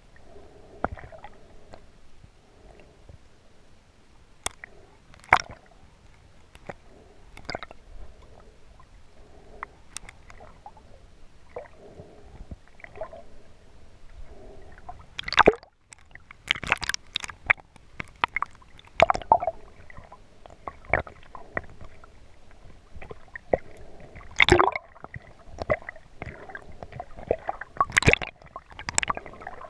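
Water sloshing and gurgling around an underwater camera, with irregular sharp clicks and pops, busier in the second half.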